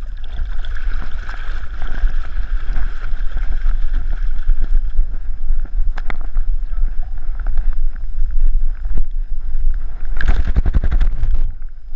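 Heavy rumble and sloshing of water against a GoPro on a vest between a swimming dog's shoulder blades as the dog paddles ashore and moves onto gravel. Near the end, about ten seconds in, a louder burst of rustling and clatter lasting a second or so.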